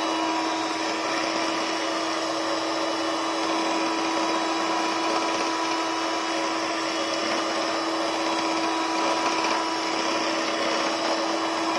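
Electric hand mixer running at a steady speed, its twin beaters whisking a thin cheesecake batter in a bowl. The motor gives an even, unchanging hum.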